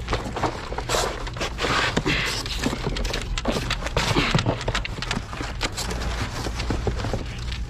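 Cardboard box being handled and pulled open while a framed mirror with a metal chain is slid out of it: irregular scraping, rustling and light knocks, over a steady low hum.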